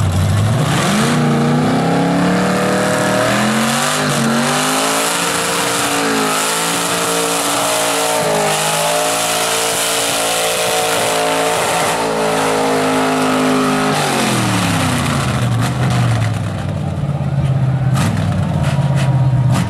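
Mud truck (a lifted GMC pickup on tractor tires) with its engine revving hard as it drives through the mud pit. The revs climb over the first couple of seconds and hold high and wavering for about ten seconds. About fourteen seconds in they drop off to a lower run.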